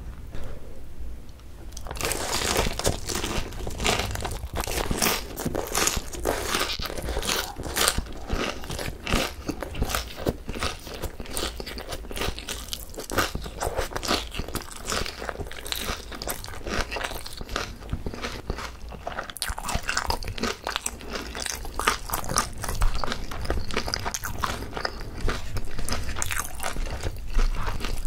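Close-miked crunching and chewing of crispy fried chicken with shredded raw green onion (pa-dak). It starts about two seconds in and then runs as a dense run of crisp crunches.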